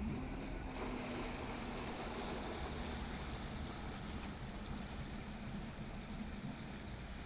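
Sea Ray 210 SLX bowrider's engine running steadily as the boat pulls away, with the hiss and churn of its prop wash. The sound eases off slowly toward the end.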